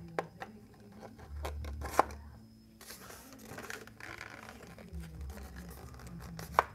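A wing spar rod knocking and scraping against the foam fuselage of a Durafly Excalibur V2 glider as it is worked through the fuselage. There are a few sharp clicks, the loudest about two seconds in, a stretch of rubbing about three seconds in, and another sharp knock near the end.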